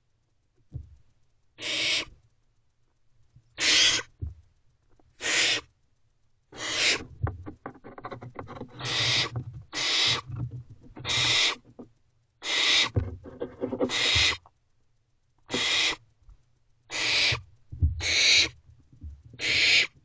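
Barn owlets hissing, which is their harsh food-begging call. Each hiss lasts about half a second and they repeat every second or two; around the middle several chicks overlap. Soft low bumps come from the owlets jostling in the nest box.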